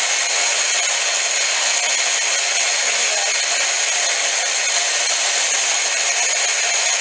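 Hand blender running steadily on its chopper bowl attachment, loud, chopping greens for pesto.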